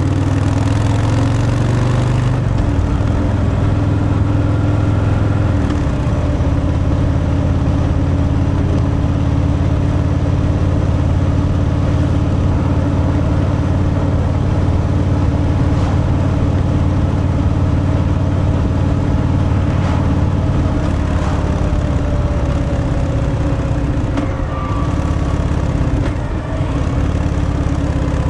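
Harley-Davidson Fat Boy's Milwaukee-Eight 114 V-twin running at a steady cruise through its stock exhaust, with a short drop in the engine note near the end before it pulls again.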